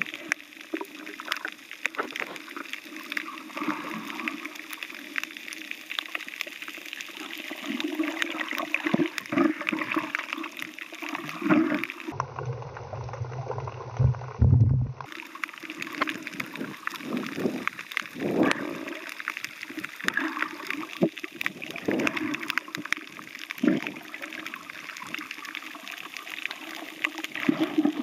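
Underwater sound picked up by a submerged camera: water moving and gurgling around it, dotted with many small clicks. About halfway through, a deeper rumbling stretch of about three seconds, with the hiss gone.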